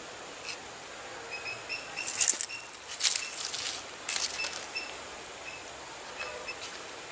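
Ripe jackfruit being pulled apart by hand, the sticky bulbs and fibrous flesh tearing and rustling in three short crackling bursts between about two and four and a half seconds in, as the seeds are pushed out of the bulbs.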